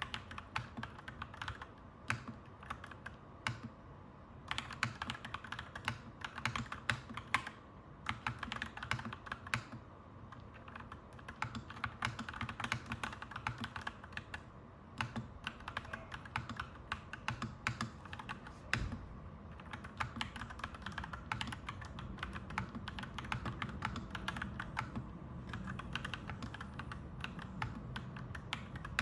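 Clacky mechanical keyboard being typed on continuously, in runs of rapid keystrokes with short pauses. A low steady rumble sits underneath and grows a little louder in the second half.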